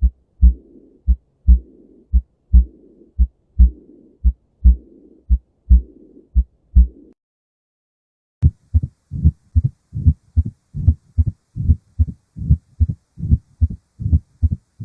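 Recorded human heart sounds. First, slow lub-dub beats about once a second, with a rough whooshing murmur filling the gap between each first and second heart sound: a systolic murmur, of the kind heard in aortic stenosis or mitral regurgitation. After a brief pause comes a faster run of crisp heart sounds with no murmur.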